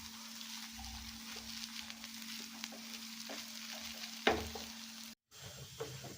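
Ground ginger and turmeric sizzling as they fry in ghee in a pan, stirred, with faint scrapes and clicks and one sharper knock about four seconds in. The sound cuts out for a moment near the end.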